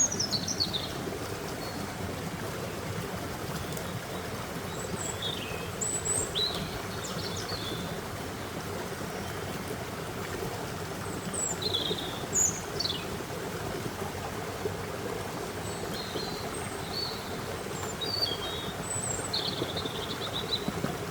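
A stream running steadily, with small birds chirping now and then over it in short, high calls, some sweeping downward in pitch.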